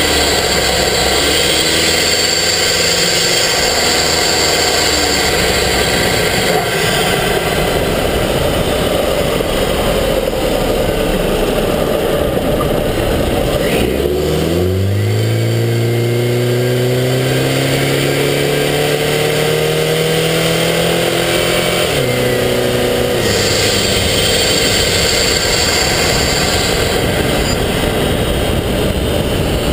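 Subaru Forester XT's turbocharged flat-four engine heard from inside the engine bay while driving, under a loud rush of air and road noise. About halfway through, the engine note climbs steadily as the car accelerates, then falls suddenly at a gear change.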